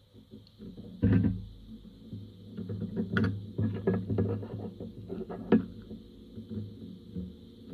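A powered-up computer's power supply and board running with a steady low hum and a faint high hiss. Several sharp clicks and taps, the loudest about a second in and again around five and a half seconds, come from metal multimeter probes being handled on the motherboard.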